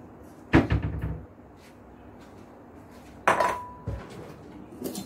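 Kitchen dishes clattering: a loud rattle of crockery and utensils about half a second in, then a sharp clink with a short ring about three seconds in and a couple of knocks, as a bowl is got out and set down on the counter.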